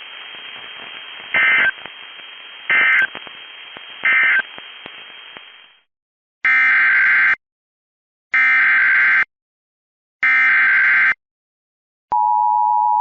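Weather-radio hiss with three short SAME data bursts about 1.4 s apart, the end-of-message code of an emergency alert. After a brief silence come three longer SAME header bursts for the next alert, and near the end a steady EAS attention tone starts.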